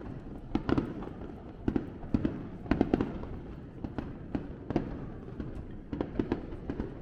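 Fireworks going off in a festival display: sharp, irregular bangs several per second, some in quick clusters, over a continuous low rumble.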